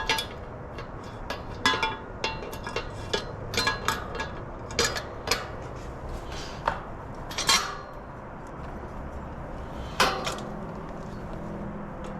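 Metal bicycle parts, rims and spokes, clinking and clattering as they are handled, in a string of irregular sharp clinks with a louder one that rings briefly about ten seconds in.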